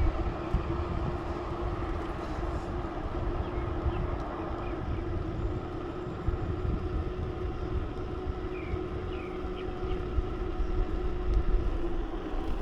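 Riding noise from a bicycle on the move: wind rumbling on the microphone and tyre noise, with a steady hum that fades out near the end.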